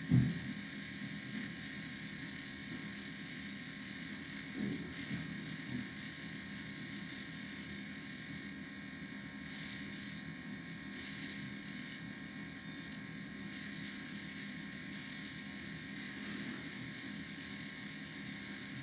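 Steady background hiss with a faint hum running under it, with a brief low thump right at the start and a fainter one about five seconds in.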